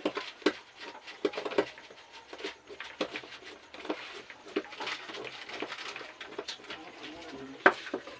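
Screwdriver working the screws that hold a tower home theatre's amplifier board: a run of small metal clicks and scrapes, with a sharper knock about seven and a half seconds in.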